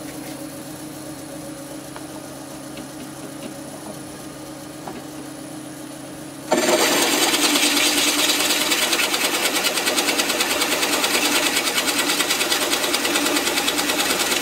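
Delta 16.5-inch drill press, run by a VFD at about 250 RPM, spinning with a steady motor hum. About six and a half seconds in, the 2-1/8-inch Forstner bit starts cutting into quarter-sawn white oak and a loud cutting noise with a fast chatter takes over and keeps going.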